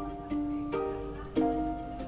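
Background music: a light instrumental tune of plucked-string notes, each struck and left to fade, about two a second.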